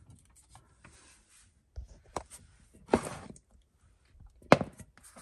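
Glass candle jars being handled and set down: a few light knocks, with two sharper ones about three and four and a half seconds in.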